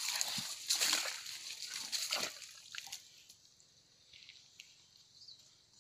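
Footsteps in rubber boots on a wet, leaf-strewn muddy bank, a run of irregular squelches and sloshes of shallow water, stopping about two and a half seconds in; after that only a few faint ticks.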